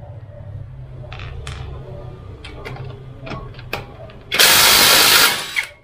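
A few light clicks as a lug nut is handled at the socket, then a Nanwei cordless impact wrench runs on a car's lug nut for about a second with its rapid hammering, the loudest sound, and stops abruptly.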